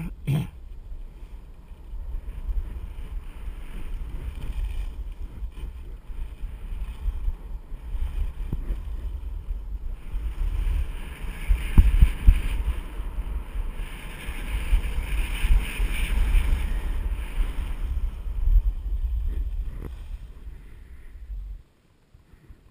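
Wind buffeting an action camera's microphone during a downhill ski run, with a rushing hiss of skis sliding over packed snow that is loudest in the middle stretch. It cuts off suddenly near the end.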